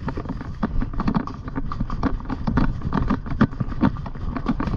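A pony's hooves striking the ground in a quick, uneven run of thuds, about three or four a second, heard from the saddle over a steady low rumble.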